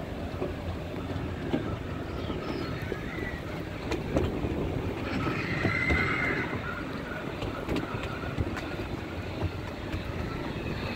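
Small ride-on railway train running along its track, a steady low rumble with scattered clicks from the wheels and a faint high squeal about halfway through.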